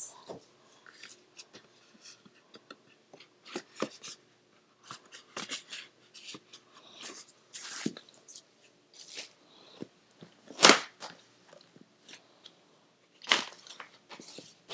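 Eyeshadow palettes being handled and set down: scattered clicks, taps and rustles of cardboard and plastic palette cases, with a sharper knock about ten and a half seconds in and another about thirteen seconds in.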